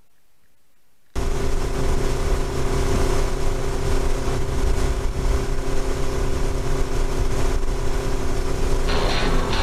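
Near silence for about a second, then a boat's outboard motor running steadily. Electric guitar music comes in near the end.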